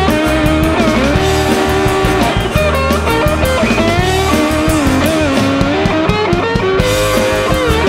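Blues-rock instrumental passage: an electric lead guitar plays sustained notes that bend and waver, over bass guitar and a steady drum beat.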